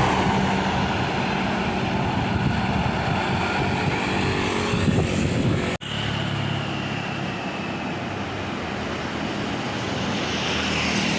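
Tour buses driving past on a road: steady engine noise and tyre rumble. About six seconds in the sound cuts out for an instant and another heavy vehicle's engine carries on.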